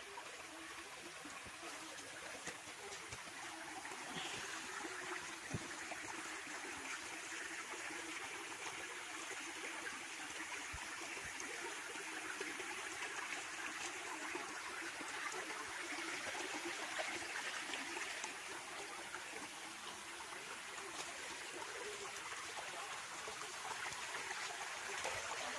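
Shallow rocky stream trickling steadily over stones, with a couple of faint knocks.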